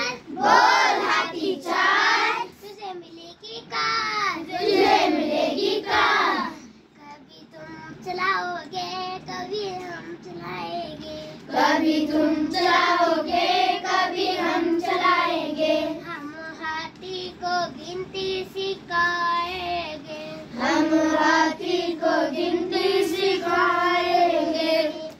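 A young girl singing a Hindi counting rhyme, with a quieter stretch of a few seconds before she picks up again about halfway through.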